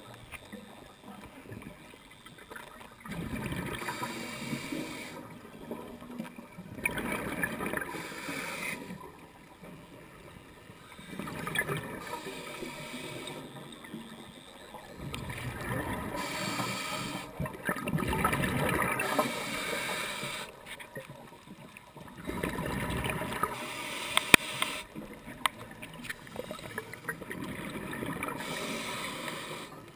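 Scuba diver's regulator underwater: exhaled bubbles gurgle out in bursts every four to five seconds, with quieter gaps between breaths. A few sharp clicks come about three quarters of the way through.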